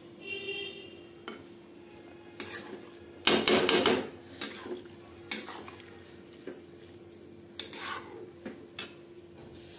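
Flat steel spatula scraping and knocking against a steel kadai while stirring grated carrots cooking down in milk for gajar ka halwa. The longest, loudest scrape comes about three seconds in, followed by a few shorter scrapes and clinks, over a steady low hum.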